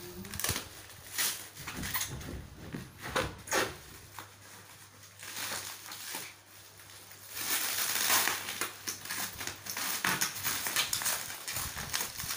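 Clear plastic wrap on a cardboard box crinkling and crackling as hands pull and pick at it, in an uneven run of crackles that grows louder and denser for a couple of seconds past the middle.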